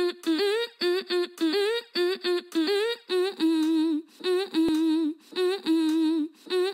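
A solo voice humming a short melody without accompaniment. It begins as quick repeated notes that slide upward, then changes to longer held, wavering notes about three seconds in.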